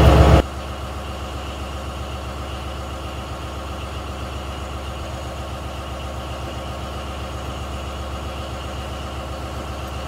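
A fishing boat's engine running steadily, heard inside the cabin as a low, even drone. It drops to a quieter level just under half a second in, then holds steady.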